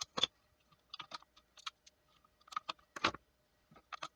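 Irregular small plastic clicks and taps, about a dozen, the loudest about three seconds in: AAA batteries being handled and fitted into a battery-powered light.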